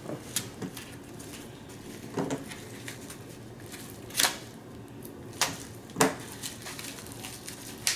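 Objects being handled and set down on a table: a scattered series of sharp knocks and clicks, the loudest about four, five and a half and six seconds in, with faint rustling between.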